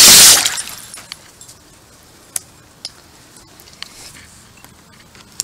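Freshly TIG-welded metal shelf plunged into a pool of water to cool it: a loud splash and rush of water at the start that fades within about a second, followed by a few faint clicks.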